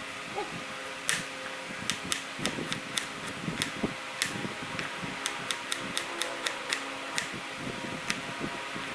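Kitchen knife chopping vegetables on a cutting board: a run of sharp taps, about two or three a second and unevenly spaced, starting about a second in and stopping near the end, over a steady background hum.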